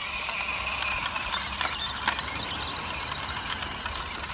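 WPL C24 1/16 scale 4WD RC crawler truck's electric motor and gearbox whining as it drives over rough ground and grass, with a few light clicks.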